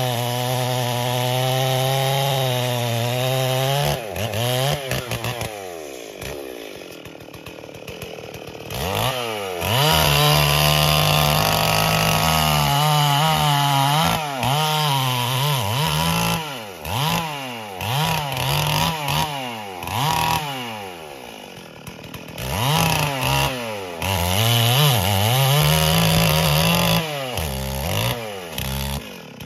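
Stihl MS440 two-stroke chainsaw cutting into a tree trunk at full throttle. About four seconds in the revs drop and stay low for several seconds, then climb back to full. From about halfway on, the engine revs up and down over and over as the cut is worked.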